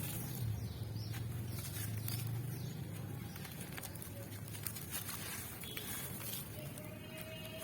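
Dry charcoal blocks crumbling, with small scattered crackles over a steady low hum.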